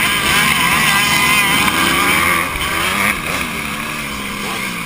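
A Honda CRF150R motocross bike's four-stroke single-cylinder engine revving hard, its pitch rising and falling through the gears, amid a pack of other dirt bikes. It gets somewhat quieter about three seconds in.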